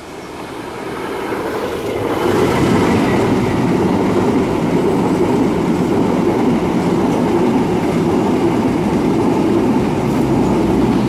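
Argo Parahyangan passenger train hauled by a diesel locomotive passing close by: the sound grows louder over the first two seconds as the locomotive comes up and passes, then holds as a loud, steady noise of the coaches' wheels rolling over the rails.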